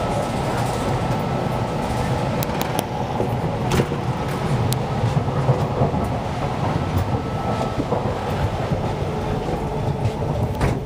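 Steady running rumble of the Hokutosei sleeper train's coach on the move, heard from inside its corridor, with a few sharp clicks scattered through it.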